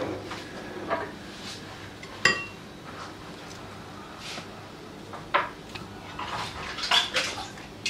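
Kitchen utensils and cookware knocking and clinking a few times, one clink about two seconds in ringing briefly, with a run of scrapes and knocks near the end.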